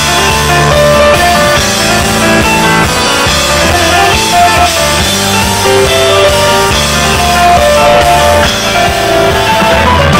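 Live rock band playing an instrumental passage with no singing: electric guitars, bass and a drum kit keeping a steady beat under a melodic lead line.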